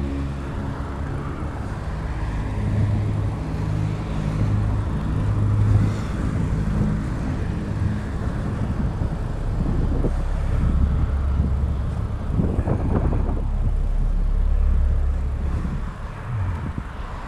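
Low, gusting rumble of wind over the microphone while cycling along a paved trail, with traffic on the road alongside.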